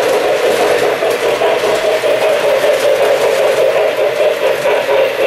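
O-gauge model trains, including a K-Line Allegheny 2-6-6-6 steam locomotive, running on three-rail track: a steady rolling rumble and motor hum with a fine, rapid clatter of wheels on the rails.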